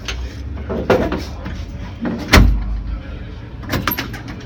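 Knocks and thumps around a race car in the pit lane, with the loudest, heaviest thump about two seconds in and a few lighter clicks near the end, over a low steady hum.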